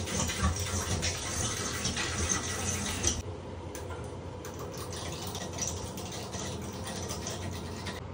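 Water rushing back into newly soldered copper pipe as a brass ball valve is slowly opened, a crackly hiss that drops to a quieter, steadier hiss about three seconds in.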